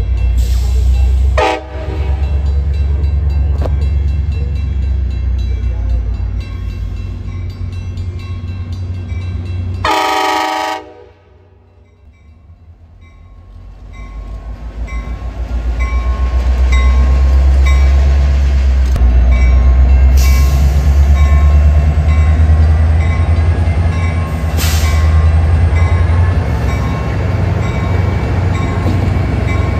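A train passing close by with a heavy low rumble, broken by two short horn blasts: one about a second and a half in and a longer one at about ten seconds. The sound drops away briefly just after the second blast, then the rumble builds back up.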